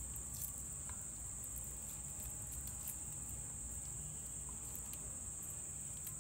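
A steady high-pitched whine runs throughout, with a few faint soft clicks of fingers tearing boiled chicken meat off the bones.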